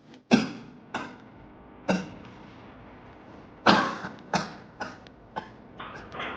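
A person coughing: three hard coughs about a second apart, a pause, then a quicker run of about five weaker coughs.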